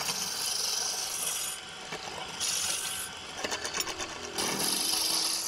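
Drill press boring a hole through a short wooden cylinder, the bit cutting into the wood in three spells with short quieter pauses between.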